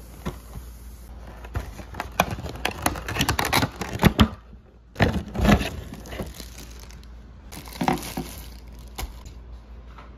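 Plastic wrapping and cardboard packaging crinkling and rustling as a vinyl figure is unpacked by hand: irregular crackles that are loudest from about two to six seconds in, with a couple of shorter bursts near the end.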